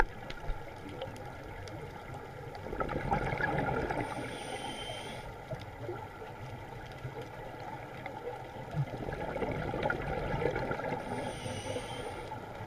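Scuba regulator breathing heard through an underwater camera housing, two breaths. Each starts with a rush of exhaled bubbles and ends with a short hissing inhale.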